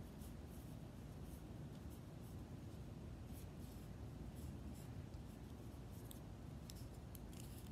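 Pokémon trading cards being sorted by hand: faint slides and flicks of card against card, over a low steady background hum.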